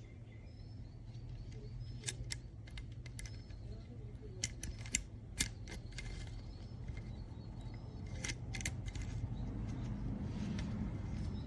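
Scattered sharp metallic clicks and clacks, several in quick pairs, over a steady low hum.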